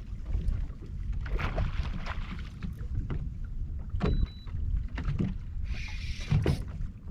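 Wind rumbling on the microphone over a kayak on open water, with scattered light knocks and two short hissing bursts, one about a second in and one near six seconds.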